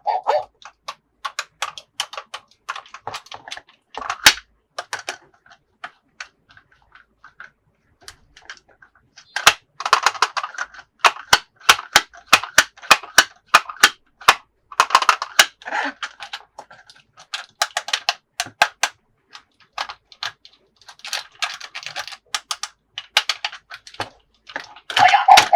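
Toy packaging and plastic toy parts being handled in an unboxing: many sharp plastic clicks and taps in irregular runs, with several stretches of crinkling packaging.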